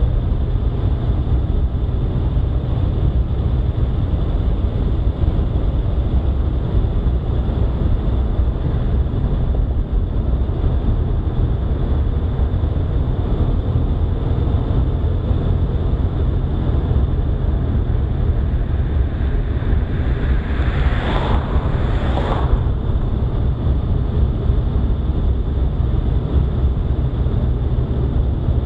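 Steady low rumble of a vehicle driving along a paved road, with wind buffeting the microphone. A brief double whoosh about three-quarters of the way through.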